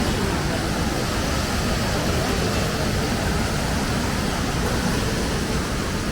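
Mountain stream rushing over rocks: a loud, steady wash of water noise.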